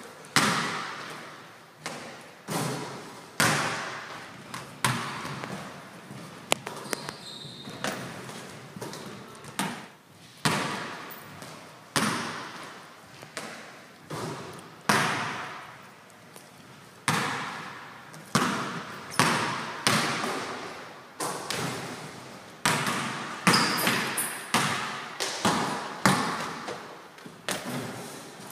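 A basketball bouncing on a wooden gym floor in a large, echoing hall: a series of sharp bounces at uneven spacing, roughly one a second, each ringing out as it fades.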